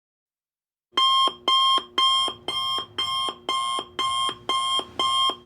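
Electronic alarm beeping: nine short, identical high-pitched beeps at about two a second, starting about a second in after dead silence and stopping abruptly.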